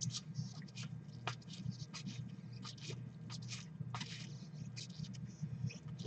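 Stack of glossy 2016 Elite football trading cards being flipped through by gloved hands: a run of soft, irregular scrapes and ticks as card slides over card, over a low steady hum.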